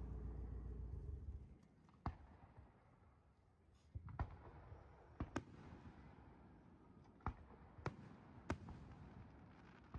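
Aerial fireworks shells bursting at a distance: about eight sharp bangs at uneven intervals, some in quick pairs. A low rumble fills the first second and a half.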